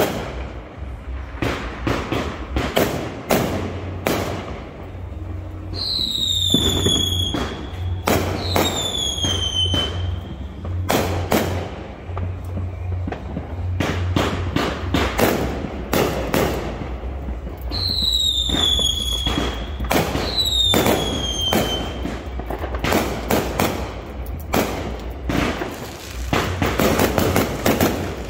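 Consumer fireworks going off in a steady stream of sharp bangs and crackles. Two pairs of high falling whistles sound about six seconds in and again about eighteen seconds in.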